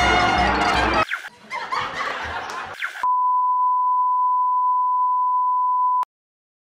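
About three seconds of cartoon soundtrack music and sound effects, then a steady 1 kHz test tone of the kind that goes with broadcast colour bars. The tone holds for about three seconds and cuts off suddenly with a click.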